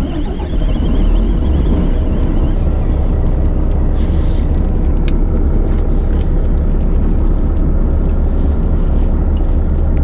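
Fishing boat's engine running under way, a steady low rumble with wind buffeting the microphone. A few light clicks near the middle and end.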